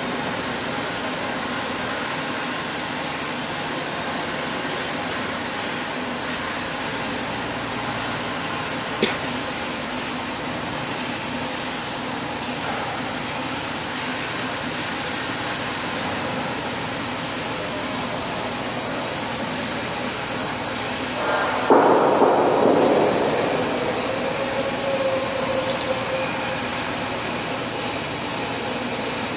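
TIG welding on a 316 stainless steel pipe joint: a steady, even hiss from the arc and shielding gas. There is a sharp click about nine seconds in and a louder, rougher burst of noise around twenty-two seconds that fades over a few seconds.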